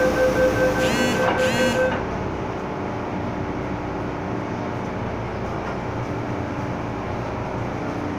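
MTR M-Train door warning beeps, a two-note tone pulsing about three times a second, stop about two seconds in. After that the steady hum and rumble of the train car carries on alone.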